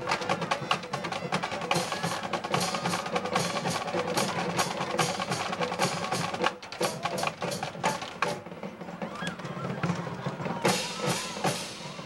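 Drums played fast: dense snare strikes and rolls with sharp wood-block-like clicks and a bass drum underneath.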